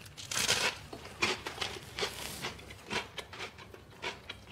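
A bite into a slice of toast topped with browned shredded beef, a crunch about half a second in, followed by chewing with small crunches.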